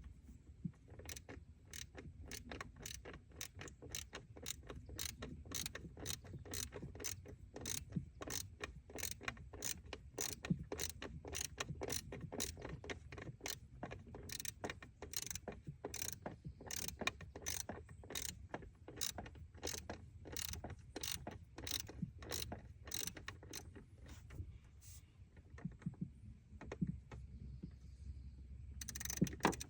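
Ratchet wrench clicking in steady strokes, about two to three clicks a second, then stopping near the end; this is typical of turning a bolt during distributor cap replacement.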